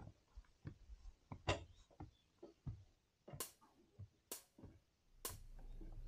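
Faint, irregular footsteps and knocks of carried gear as a person walks up wooden steps with bags. A low steady hum comes in near the end.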